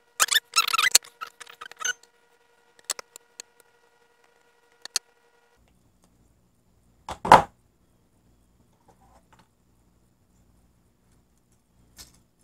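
Wire strippers clicking and crackling as insulation is stripped off the conductors of a heavy welder cable, followed by a few scattered handling clicks. A few seconds later, one short, louder knock.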